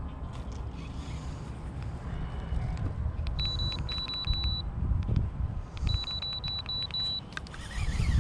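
Wind rumbling on the microphone, with scattered light ticks. In the middle come two runs of short, high electronic beeps.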